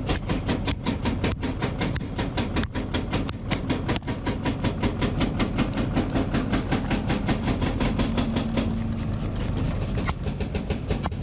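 Excavator-mounted hydraulic hammer pounding solid rock in a rapid, even train of blows, several a second, over the steady hum of the excavator's diesel engine.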